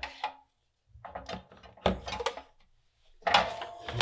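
Bench handling clatter: an opened plastic LED bulb set down on a cutting mat and a soldering iron picked up, with scattered knocks a second or two in and the loudest clatter about three seconds in.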